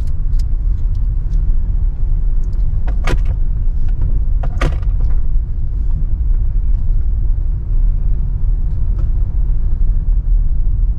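Car driving on a rough road, heard from inside the cabin: steady low rumble of engine and tyres, with two sharp knocks about three and four and a half seconds in.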